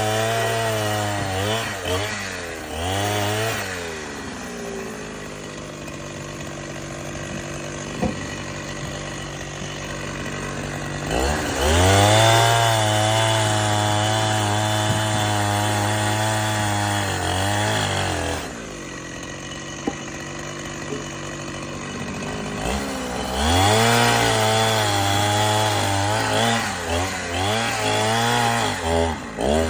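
Chainsaw engine blipped up and down a few times, then held at high revs for about seven seconds while cutting wood. It drops back to idle, then runs at high revs again through a second long cut near the end.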